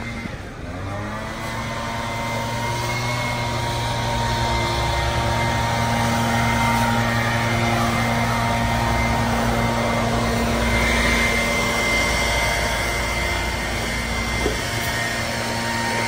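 A truck engine revs up and holds at steady high revs under load, with a high whine over it. It eases off about fourteen seconds in.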